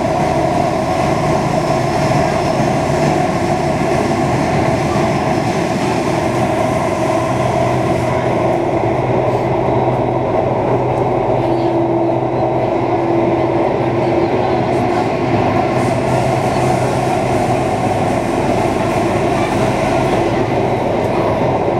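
Singapore MRT Circle Line train running through an underground tunnel: a steady rumble with a continuous multi-tone hum, and one hum tone stands out for a few seconds around the middle.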